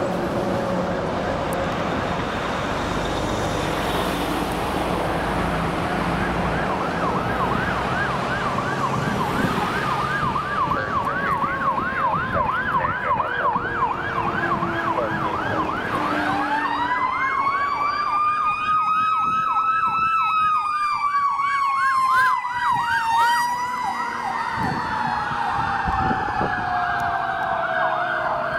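Fire truck responding with sirens: an electronic siren yelping rapidly up and down, joined about sixteen seconds in by a second siren that winds up to a high wail and then slowly winds down, over the truck's engine rumble.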